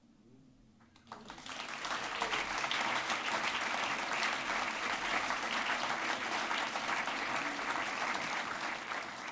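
Audience applauding, breaking out about a second in after a brief hush and holding steady to the end, easing off slightly near the end.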